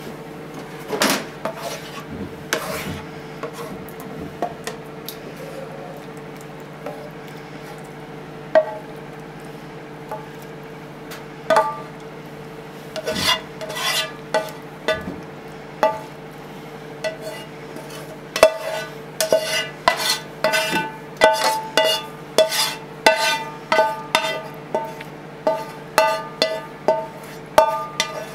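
A spatula scraping and knocking food out of a frying pan onto a ceramic plate: scattered knocks at first, then about one ringing tap a second through the last ten seconds, over a steady low hum.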